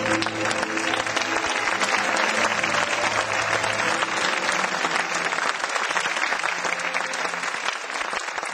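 Audience applauding steadily over held background music chords, whose lowest notes drop out about four seconds in.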